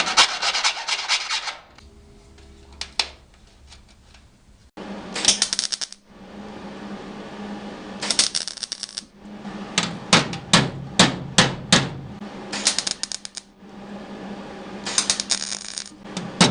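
A welder tacking and stitch-welding a small sheet-metal patch in short crackling bursts of about a second each, with quick single pops in between. A steady low hum runs under most of it.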